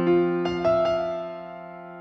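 Background music: a piano playing slow held chords, a few new notes struck about half a second in, the sound gently fading away afterwards.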